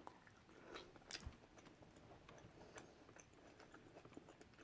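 Faint chewing, with soft scattered mouth clicks and ticks, one a little louder about a second in.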